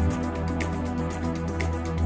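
Electronic music track made in the Music Maker Jam app: a sustained low bass under a quick, steady ticking hi-hat pattern, with a brighter accent about once a second.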